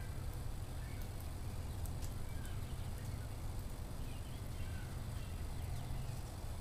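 Wood fire burning in a wood stove with a few faint crackles over a steady low rumble, while small birds chirp faintly now and then.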